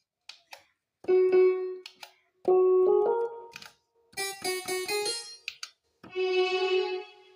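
Casio CDP-100 digital piano playing a few separate notes and short runs of notes, with a held chord near the end. Two light clicks come just before the first note.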